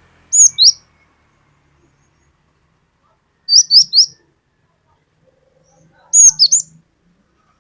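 Cinereous tit (glatik batu) singing: three short loud phrases of sharp, quickly falling whistled notes, two notes near the start, three in the middle and four near the end, the repeated 'wucit wucit' song.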